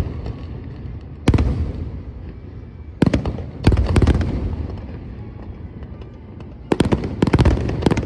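Aerial firework shells bursting: a bang about a second in, two more around three to four seconds in, and a rapid cluster of bangs near the end, each followed by a rumbling, crackling tail.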